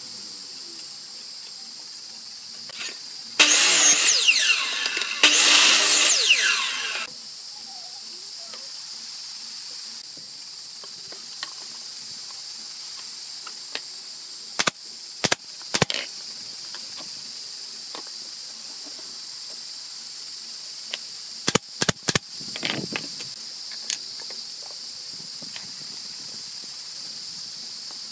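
Two loud runs of a miter saw about four to seven seconds in, its whine falling in pitch as the blade spins down. Later a pneumatic brad nailer fires sharp single shots, about three and then about four, over a steady high buzz of insects.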